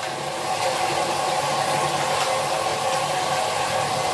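Water running steadily from a handheld shower onto a tiled floor, an even rushing hiss with a faint steady whine.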